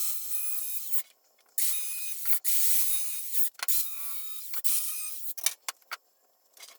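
Hand tool working the power strip's sheet-metal housing: five scraping strokes, each about a second long, with sharp clicks between them.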